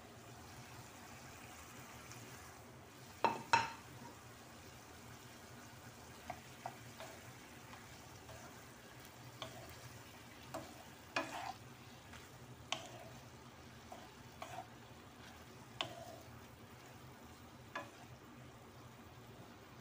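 Wooden spatula stirring chopped vegetables in a pan as they fry, with scattered short knocks and scrapes against the pan over a faint, steady sizzle.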